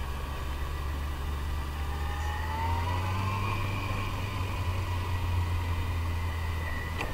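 Yamaha FJR1300 motorcycle's inline-four engine running under way on a gravel road, its note rising a little about two and a half seconds in as it picks up speed.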